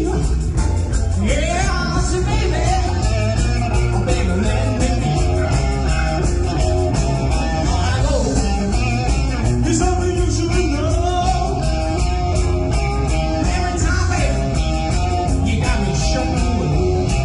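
Live blues-rock band playing with electric guitar, bass and drums at a steady beat.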